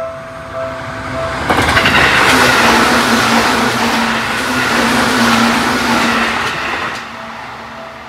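A Seibu-type Japanese level-crossing warning bell dings in a steady repeating pattern. About one and a half seconds in, an electric train passes at speed and drowns it out with a loud rush and rumble and a steady low hum. The train noise dies away near the end, and the bell can be heard again.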